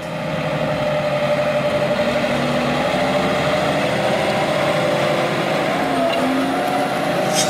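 Massey Ferguson tractor's diesel engine running steadily under load while pulling a planter, with a steady whine that wavers slightly in pitch about six seconds in.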